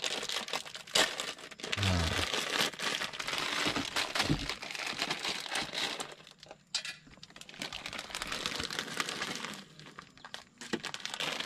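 Plastic food packaging crinkling and rustling as it is handled, a dense run of crackles with a couple of short pauses.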